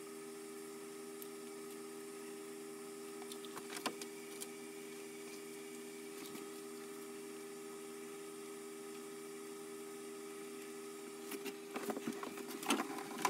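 A steady low machine hum, with a few faint clicks about four seconds in and again near the end.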